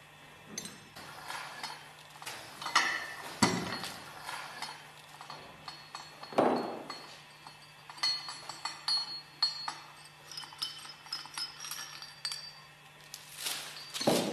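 Steel parts and tools clinking and knocking as a puller plate and its screw are taken off a centrifugal clutch hub on a motor shaft, with a cluster of light metallic ringing about eight seconds in.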